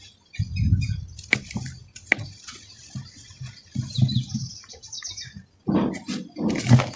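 Dry red dirt clumps crushed and crumbled by hand in a bowl: soft crunching thuds with a fine gritty crackle as the clods break and powder falls, in separate bursts, the longest and loudest near the end.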